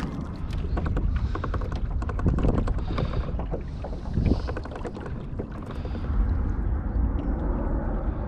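Small boat moving across a lake, with water churning and lapping around the hull and stern and occasional clicks and knocks of gear in the boat.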